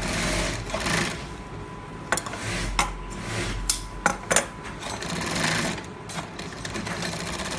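Industrial sewing machine stitching a boxing glove, running in short spurts of about a second, with sharp clicks in the pauses between runs.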